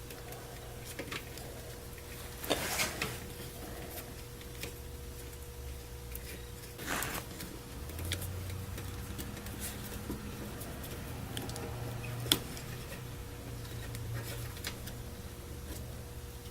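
Small clicks and rustles of hands handling a plastic wiring connector and its pins, with one sharper click about three quarters of the way through, over a steady low hum.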